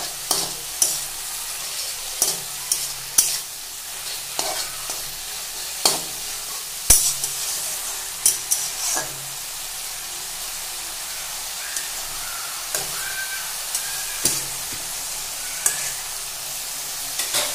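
Leafy greens sizzling in oil in a stainless steel kadai while a metal spatula stirs them, scraping and clinking against the pan. The clinks come often in the first half and only now and then later.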